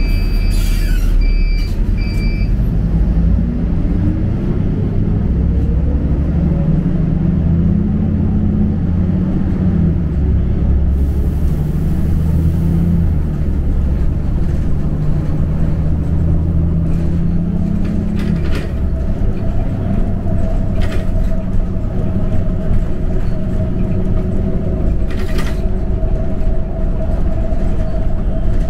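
Inside a moving city bus: engine and road rumble running steadily, the engine note shifting as it eases through traffic and rising once a few seconds in. A brief high beep sounds at the start, and a steady whine joins in about two-thirds of the way through.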